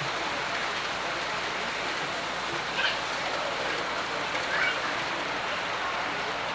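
O scale model freight train rolling over a steel trestle, a steady rushing of metal wheels on the rails, with two brief louder clicks about three and four and a half seconds in.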